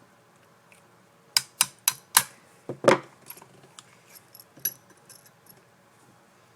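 Sharp clicks and clatter of a CO2 air pistol's small metal and plastic parts being handled and fitted together during reassembly: four quick clicks about a second and a half in, a louder clatter around three seconds, then a few lighter ticks.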